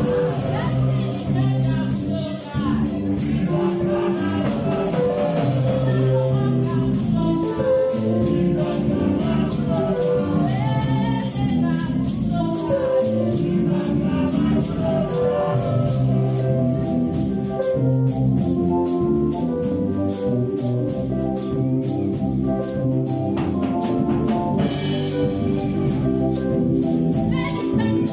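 Gospel choir singing a praise song over instrumental backing, with shaken percussion keeping a steady beat.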